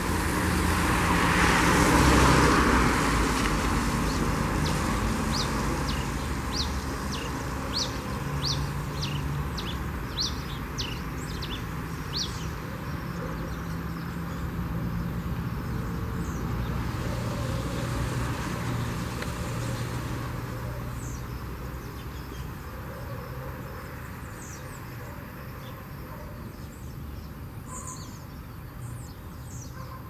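Red-crested finch (tico-tico-rei) singing: a run of about a dozen short, high, down-slurred notes, roughly two a second, then scattered single high notes. Steady road traffic runs underneath, with a vehicle passing loudly in the first few seconds.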